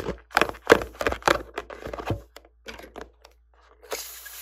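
A clay-filled rubber balloon squeezed and handled with long fingernails: a quick run of sharp clicks and taps, then a brief hiss near the end.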